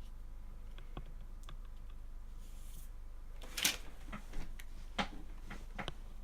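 Scattered small clicks and rattles of cables and plastic parts being handled inside a computer case while cables are routed, the loudest click about three and a half seconds in.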